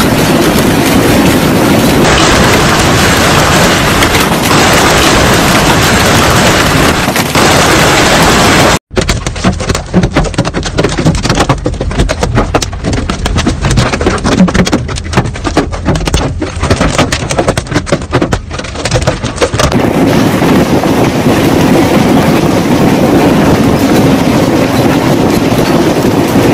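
Heavy storm of hail and rain: a steady, loud rush of falling precipitation. About nine seconds in it cuts to a dense, irregular clatter of many hard impacts, and about twenty seconds in the steady rush returns.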